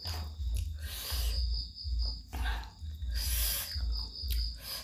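Close-up eating sounds of a person slurping and chewing laksa noodles, in irregular noisy bursts, over a steady high-pitched whine and a low rumble.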